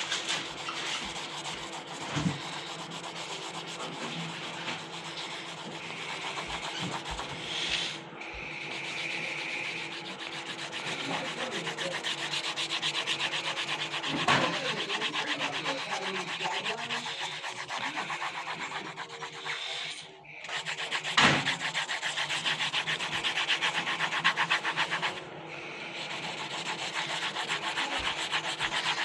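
Coloured pencil scribbling and shading on paper close by, with fast back-and-forth strokes, a few short breaks and an occasional knock.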